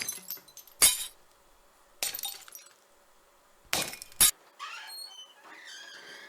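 Glass shattering in a series of sharp, loud crashes, about five in quick succession with short gaps. A fainter pitched sound follows near the end.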